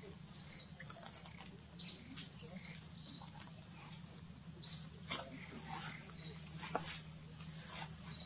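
Short, high-pitched chirps, each sliding down in pitch, repeating irregularly about once a second: an animal calling.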